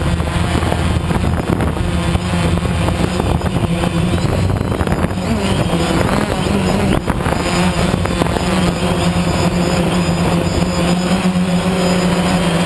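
An engine running steadily and loud, its pitch dipping briefly about halfway through, over noisy wind-like hiss.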